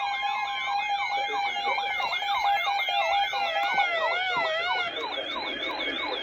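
Several electronic sirens sounding at once, their fast up-and-down yelping sweeps overlapping, over a steady tone that cuts off about four seconds in.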